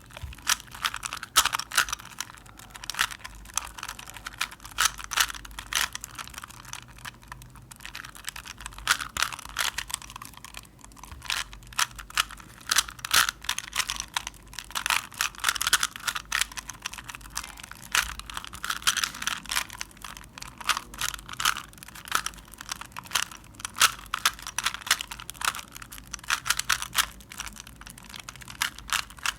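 A Rubik's cube being turned rapidly by hand during a timed solve: a continuous, irregular stream of quick plastic clicks and clacks as the layers are twisted, with short pauses here and there.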